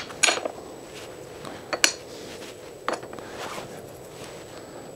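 A few sharp metal clinks and clacks as small metal trunk-mount brackets are set onto a motorcycle's aluminium rear rack by hand, the last about three seconds in.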